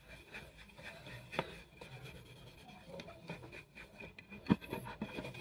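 Cloth rubbing over a plastic helmet visor, wiping off metal-polish residue: a faint, irregular scuffing with two light knocks, about a second and a half in and near the end.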